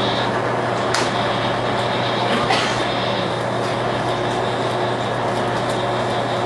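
Steady machinery drone with a constant low hum, with a few light clicks and knocks.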